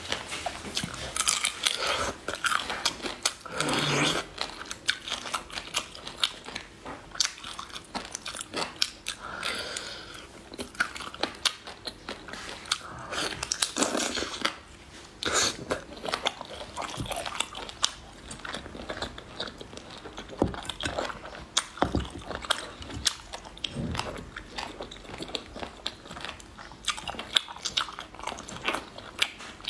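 Close-miked mouth sounds of eating marinated snails: wet sucking of the meat from the shells, chewing, and many sharp clicks and crunches, with a few longer slurps.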